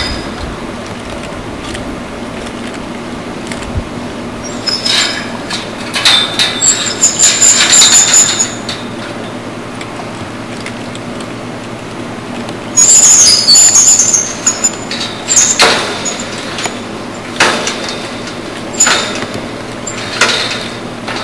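Rope being hauled through a block-and-tackle pulley to hoist a steel tower section: a run of separate high squeals and scrapes, one with each pull, with short pauses between them.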